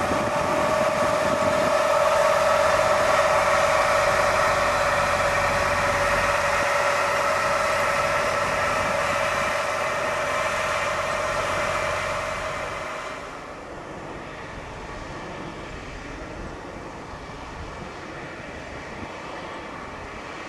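Tractor engine running steadily under load while pulling a 4.5 m Agricola seed drill, with a steady whine over a low rumble. The sound drops clearly to a lower, steadier level about two-thirds of the way through.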